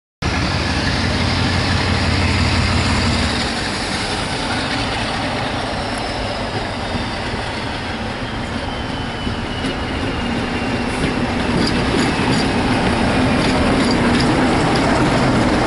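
A mainline diesel locomotive hauling passenger coaches passes close by, with a steady rumble and a thin high whine that falls slowly in pitch. Sharp clicks come in from about the middle onward as the coaches roll past.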